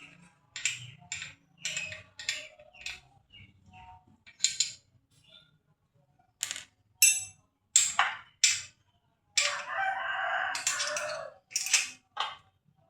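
A rooster crows once, starting about nine and a half seconds in. Around it comes a string of short, sharp clicks and knocks.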